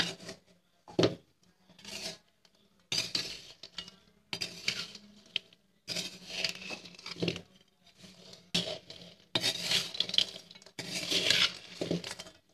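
A metal spoon scraping and clinking against a metal kadai in a dozen or so irregular strokes as crisp fried sev is tossed and stirred. The sugar syrup is drying into a coating on the strands.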